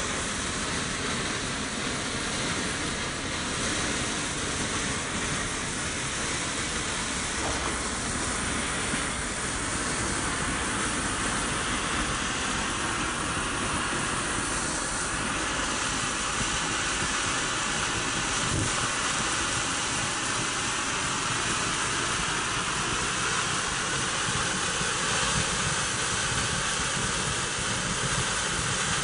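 Cocktail Party ground fountain firework burning, spraying sparks with a steady hiss.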